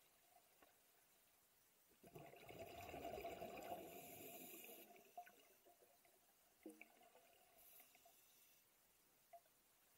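Scuba diver's exhaled air bubbling up underwater: one burst of bubbling about two seconds in that lasts about three seconds and fades, followed by a few faint ticks and gurgles.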